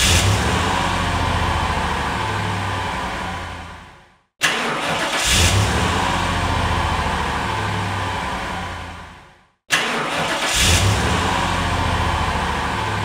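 Car engine start, repeated: the engine runs and fades out at about four seconds, then starts again twice, at about four and a half and ten seconds in. Each start opens with a sharp click and a brief flare in engine speed, then settles into a steady run that fades away.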